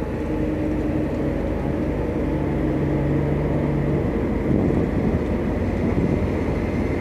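Diesel engines of a Komatsu PC200 excavator and a concrete mixer truck running in a steady drone, the excavator working its boom and arm.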